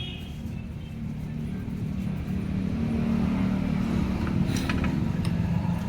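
Royal Enfield Classic 350 single-cylinder engine running steadily, its low drone growing a little louder about two seconds in. The mechanic puts the engine's excess noise down to a bearing.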